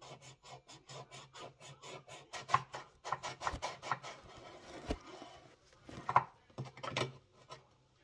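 Paintbrush rubbing back and forth across a small painted board: a quick run of short scrubbing strokes, about four a second, then more irregular scraping with a few louder strokes.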